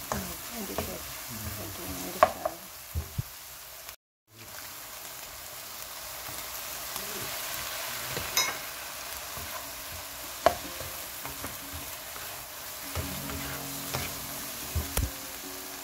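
Egg and chopped vegetables sizzling in a hot nonstick wok while being stir-fried, a spatula scraping the food around and knocking against the pan now and then. The sound cuts out completely for a moment about four seconds in.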